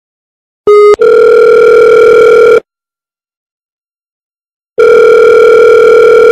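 Telephone ringback tone heard on the line while a call rings out unanswered: two loud, buzzy steady tones of about two seconds each, a couple of seconds apart, preceded by a brief blip.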